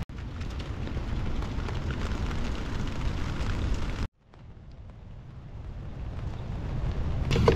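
Strong wind buffeting the microphone: a dense low rumble with no clear tones. It drops out abruptly about four seconds in and builds back up toward the end.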